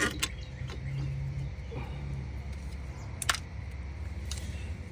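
Washer parts being handled during the repair: a few sharp clicks and knocks, the loudest about three and a half seconds in, over a steady low hum.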